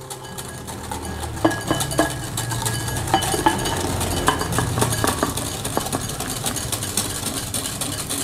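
Wire whisk clinking rapidly against a glass mixing bowl as it beats egg yolks and sugar while hot cream is poured in slowly, tempering the yolks so they don't curdle.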